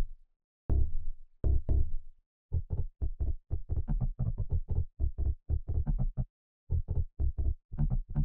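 Synth bass from an FM7 FM-synthesizer channel playing a staccato 1980s Italo-disco bassline: two longer notes near the start, then a quick run of short, clipped notes with brief gaps.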